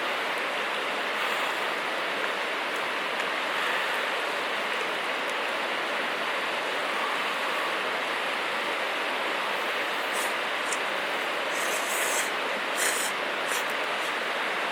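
Steady rushing hiss, with a few sharp crackles between about ten and thirteen seconds in.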